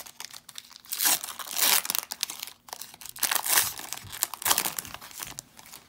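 Foil wrapper of a Bowman Draft trading-card pack being torn open and crinkled in repeated bursts as the cards are pulled out of it.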